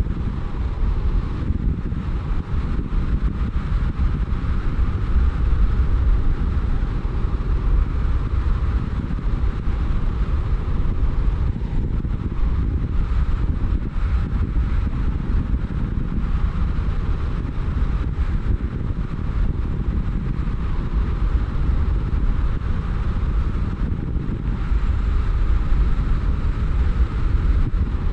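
A car driving along a road, heard as a steady deep rumble of road and wind noise with no distinct engine note.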